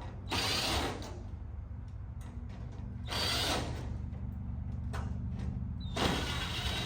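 Power drill/driver backing out the Phillips screws that hold a chrome trim strip on a truck fender, in three short runs a few seconds apart, each starting with a brief high whine.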